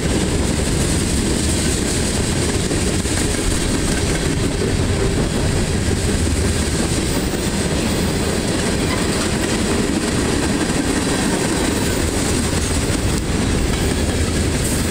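Freight cars of a CSX train, covered hoppers and tank cars, rolling past with their steel wheels running steadily on the rails.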